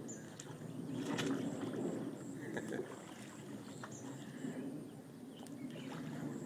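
Water splashing and slurping at the surface as large fish take floating bread, with a few short sharp splashes.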